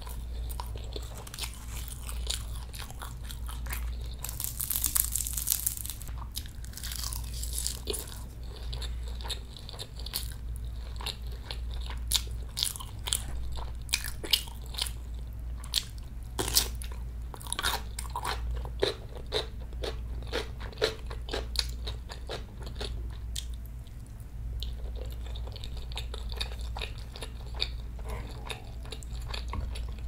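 Close-miked eating: steady chewing, with bites into crunchy chonggak radish kimchi. A run of sharp crunches comes from about twelve to twenty-two seconds in.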